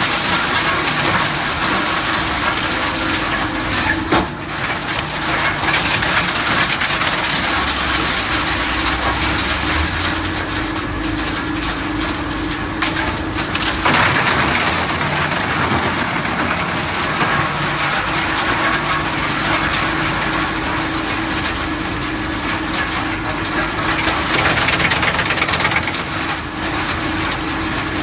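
GX428 132 kW drum wood chipper running loud and chipping wood: a steady hum from the machine under dense, continuous crackling noise.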